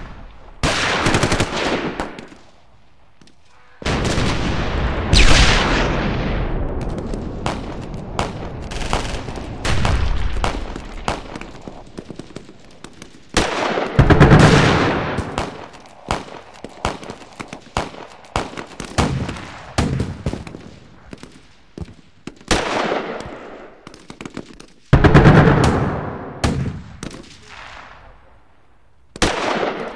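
Battle sound effect: bursts of automatic gunfire and scattered single shots, broken by several heavy explosions with long rumbling tails. The two loudest blasts come about halfway through and near the end, with a brief lull near the start.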